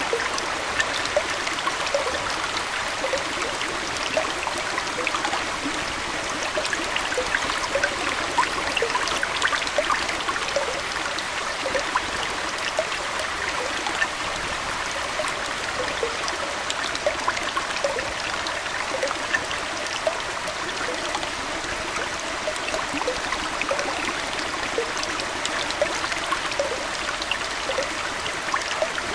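Aquarium water trickling and splashing steadily, with a dense scatter of small droplet plinks over a continuous rush.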